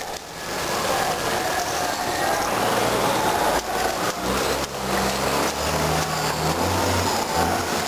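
A low engine hum comes in about a third of the way through over a steady rushing noise, with a few sharp clicks near the middle.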